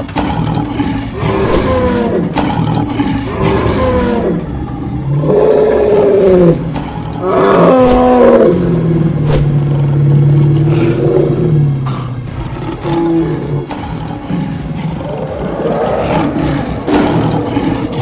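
Cartoon lion sound effects: a series of loud roars and snarls, including a long roar about 7 seconds in that drops into a low, held growl.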